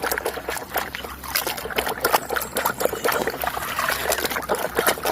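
Water splashing and trickling as a muddy toy vehicle is washed by hand, a steady run of small, irregular splashes and drips.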